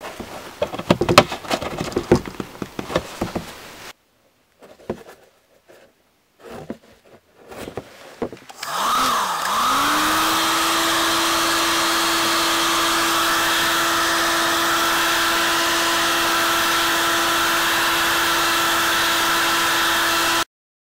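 Clicks and knocks of a plastic milk-carton cap being screwed shut and the carton handled on cardboard. About nine seconds in, a handheld hot-air blower starts, its whine rising to a steady pitch with a rushing hiss as it blows hot air onto the sealed carton. It cuts off abruptly near the end.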